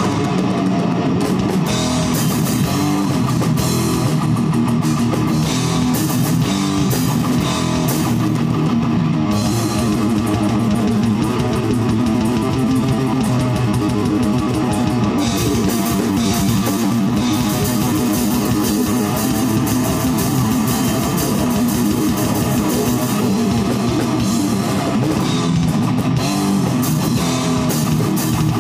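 Heavy metal band playing: a drum kit played fast with crashing cymbals under electric guitar.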